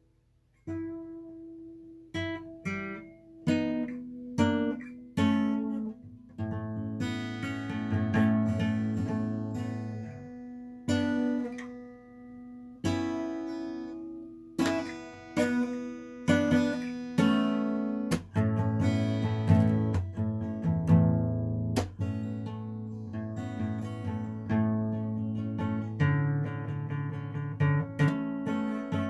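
Acoustic guitar being played: strummed chords, each struck and left to ring, in a steady run after a brief pause at the start.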